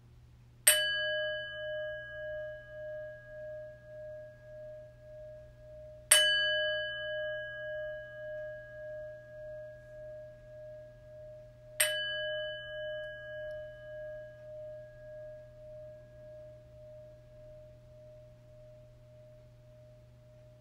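A bell struck three times, about five and a half seconds apart, to open worship. Each stroke rings on with a wavering hum that fades slowly, and the last dies away over several seconds.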